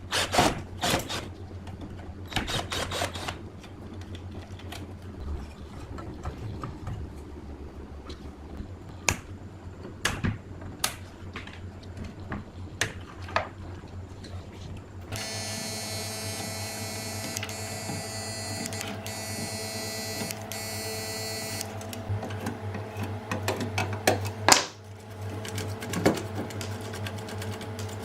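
Scattered sharp clicks and knocks of hard parts being handled. About halfway through, a steady mechanical hum with several even tones starts, with more clicks over it and one loud knock near the end.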